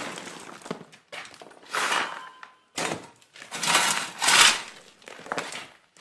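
Digging tool biting and scraping into soil in uneven strokes, about five crunching scrapes with short pauses between them.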